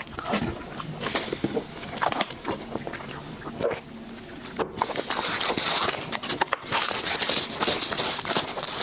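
Close-miked eating sounds: irregular wet mouth clicks and chewing of a dessert, becoming denser and steadier over the second half.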